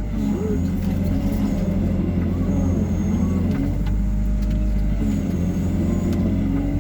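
Hyundai R140W-7 wheeled excavator's diesel engine running steadily under load while the machine drives forward pushing soil, with pitched tones above the engine hum rising and falling several times as it works.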